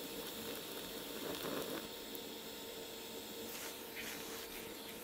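Faint, steady hiss of a TIG welding arc on thin sheet-steel bodywork, with a faint steady hum underneath.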